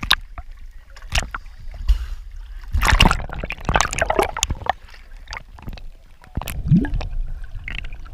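Seawater sloshing and splashing around a camera held at the surface, the sound muffled and gurgling as it dips underwater. Irregular splashes throughout, with the loudest, busiest stretch of splashing about three seconds in.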